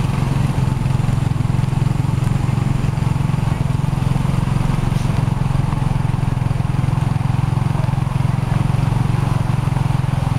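A vehicle engine running steadily close by: an unbroken low drone that holds one level, with no revving.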